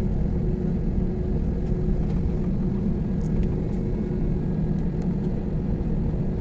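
Steady low rumble inside an airliner cabin on the ground before takeoff, engines running at low power with a constant low hum.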